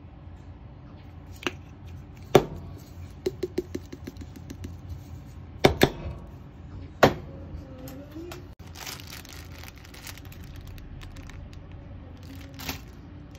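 Hands working with kitchen items: sharp clicks and knocks from a spice bottle and its cap, with a quick run of small taps about three seconds in as the spice is shaken onto an egg in a plastic bowl. Later the plastic bag of enoki mushrooms rustles and crinkles as it is opened, all over a steady low hum.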